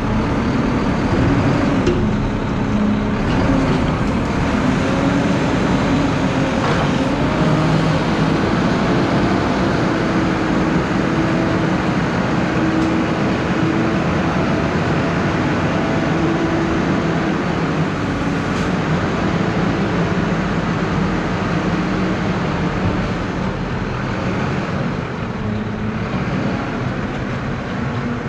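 Front-loader garbage truck's diesel engine running steadily as the truck reverses away down the driveway, its engine note shifting in pitch and the sound easing off slightly near the end.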